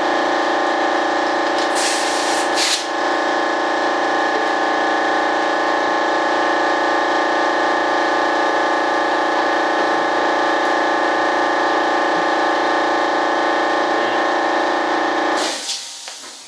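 Steady electric-motor whine, like a power tool or shop vacuum running at constant speed, switched off about fifteen seconds in.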